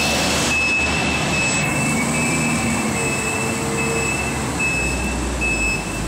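Refrigerated shipping container's cooling unit running: a steady fan noise with a thin, high, constant whine. A low rumble comes in near the end.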